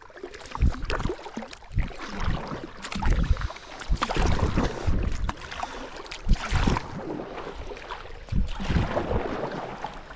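Kayak paddle strokes splashing in the river every second or two, with wind buffeting the microphone.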